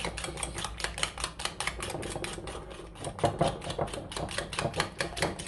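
Metal spoon beating egg and sugar in a ceramic dish, clicking rapidly against the dish several times a second.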